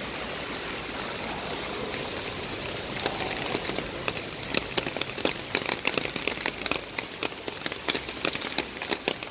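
Heavy rain falling steadily. From about three seconds in, many loud individual drops tap close to the microphone over the rain's hiss.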